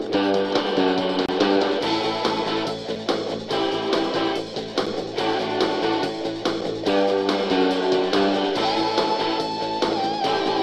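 Instrumental background music led by guitar, with a long held lead note near the end that wavers just before it ends.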